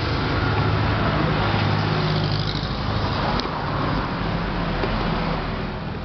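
A motor vehicle's engine running close by, a steady low rumble with traffic noise that eases off near the end. A single sharp click about three and a half seconds in.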